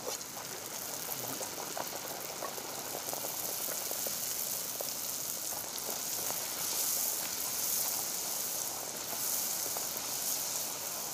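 Poori deep-frying in hot oil in an iron karahi: a steady sizzling crackle of the bubbling oil.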